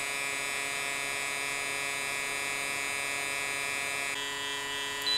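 Hot air rework station blowing on an LCD's flat-flex ribbon cable, with a computer cooling fan running alongside: a steady motor whine made of many fine tones. The sound changes slightly about four seconds in, and a short high beep comes right at the end.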